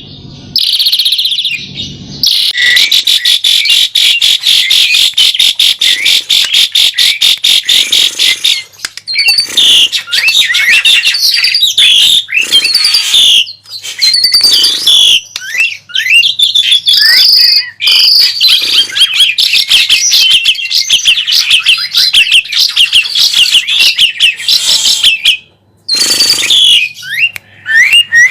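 Asian pied starling (jalak suren) singing an agitated, rival-challenging song: a fast, even rattling chatter for several seconds, then a varied run of whistles, slurred squeaky notes and chatters.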